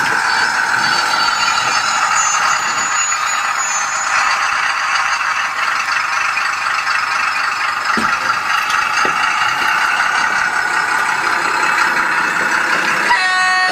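Doehler & Haass SD22A sound decoder playing a DR V 15 diesel locomotive sound through a tiny 9x16 mm speaker in a model locomotive: the small diesel engine runs steadily as the train moves. A horn sounds near the end.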